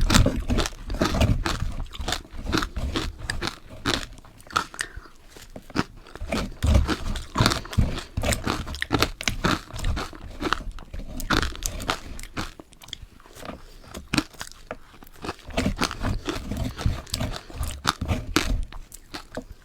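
Close-miked bites and chewing crunches of ice dusted with matcha powder: a dense run of crisp crunches that eases into a quieter spell about two-thirds of the way through, then picks up again.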